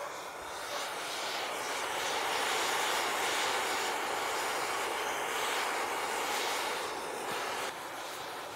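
Handheld gas torch flame hissing steadily as it heats a crack in a cast iron stove panel while a filler rod is run along it. The hiss swells after the first second and drops a little near the end.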